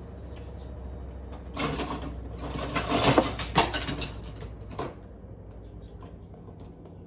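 A kitchen drawer or cupboard being opened and utensils rattling and clinking inside it for about three seconds, loudest in the middle, over a steady low hum.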